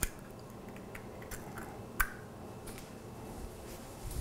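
An egg being broken open over a mixing bowl of batter: a sharp crack of the shell at the start, then a few faint clicks and one light clink about two seconds in.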